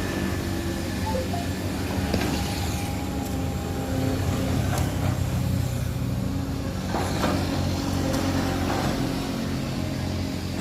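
An engine running steadily at idle, with a few sharp knocks.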